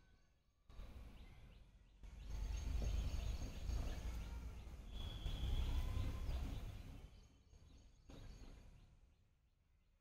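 Outdoor ambience: a low rumbling noise swells for about five seconds and then fades, with a short bird call about five seconds in.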